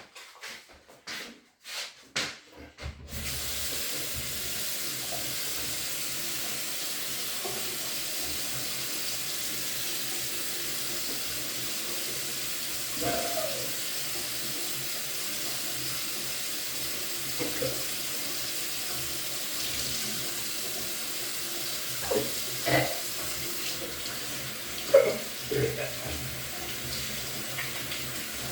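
Water from a kitchen tap running steadily into a sink, turned on about three seconds in after a few clicks. A few short louder sounds come over the running water in the second half.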